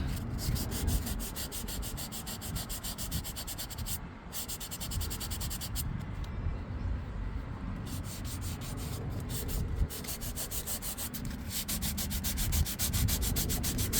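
400-grit sandpaper rubbed in quick back-and-forth strokes over a car seat's upholstery, about five strokes a second, with short pauses about four seconds in and again around six to seven seconds. It is a light prep sand of a damaged spot before repair.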